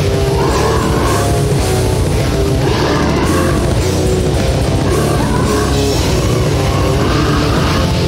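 Loud, dense heavy metal recording: distorted guitars over a driving drum kit, playing steadily throughout.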